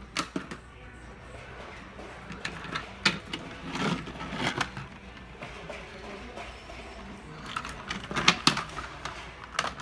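Toy trains clacking and knocking on a wooden railway track as they are pushed along and set down: irregular light clicks, with clusters about three to four seconds in and again around eight seconds in.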